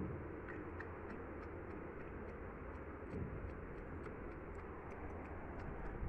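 Faint, regular light ticking, about three ticks a second, over a steady low hum, with a soft low bump near the start and another about three seconds in.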